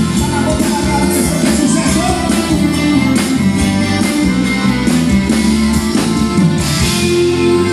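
Live sertanejo band music through a concert PA, with drums, bass, guitars and accordion playing to a steady beat.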